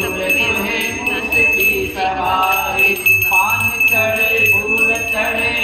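Small brass puja hand bell (ghanti) rung continuously, a steady bright ringing with rapid strikes, over voices.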